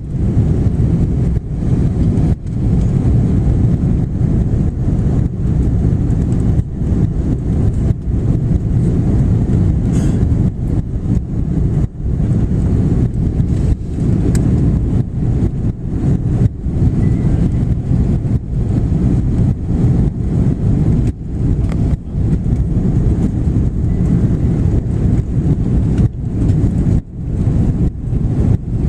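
Airbus A330-300 airliner cabin noise during landing: a loud, steady low rumble of engines and rushing air, broken by many brief dips in level.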